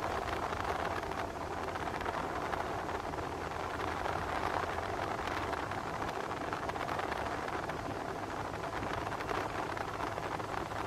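Ship's engines running with a steady drone under an even rushing noise, with no pause or change throughout.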